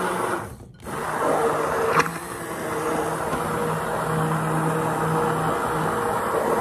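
Immersion blender motor running steadily in a jar, emulsifying egg, lemon juice and olive oil into mayonnaise. It drops out briefly just under a second in, and there is a sharp click about two seconds in.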